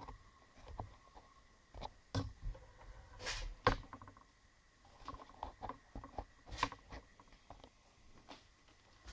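High-voltage ion wind blower rig giving off a faint steady high tone, with scattered short clicks and crackles; the tone fades out about seven seconds in.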